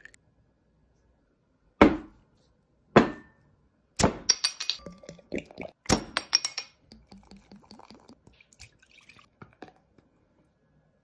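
Glass beer bottles knocked and clinking, with a brief high ring after the two loudest clinks, then a trail of soft ticks and drips that fades out as beer is poured into a glass.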